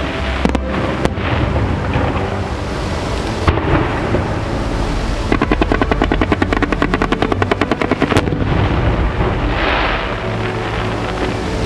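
Fireworks going off in a dense barrage: a continuous low rumble of bursts with scattered sharp cracks. From about five seconds in, a rapid even string of reports, roughly ten a second, runs for about three seconds and then stops.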